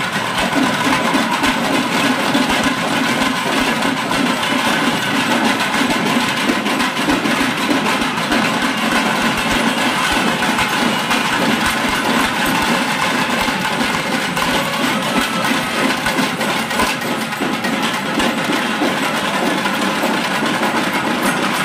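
Tamil temple band playing loudly and without a break: thavil barrel drums beaten with sticks in a fast, dense rhythm, nadaswaram pipes sounding a sustained reedy tone, and a constant metallic jingling over the top.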